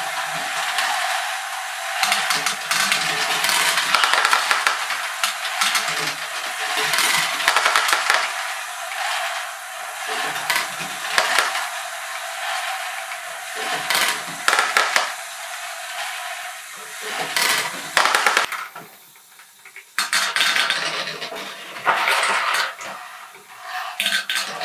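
Small plastic balls rattling and clattering inside a turning LEGO screw lift built from transparent orange STUNTZ curved panels, a dense run of clicks and knocks. The clatter drops away briefly about 19 seconds in, then picks up again.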